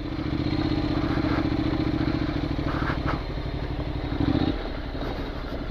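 Honda 750X DCT's parallel-twin engine running steadily at low speed under light throttle. A little over four seconds in, the engine note drops and thins, with a few faint clicks over the top.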